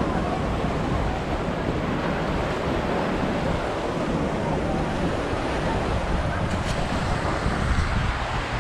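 Small ocean waves washing and splashing against the rocks and sandbags of a beach groin, with wind buffeting the microphone.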